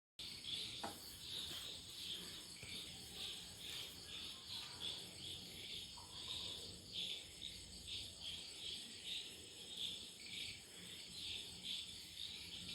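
Crickets chirping in a faint, steady pulsing chorus, about two chirps a second, with a faint click about a second in.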